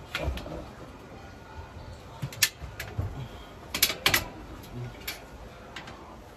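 Scattered sharp clicks and taps of metal parts of a slotted-angle shelving frame being knocked and fitted together by hand, about half a dozen, with a small cluster a little past the middle.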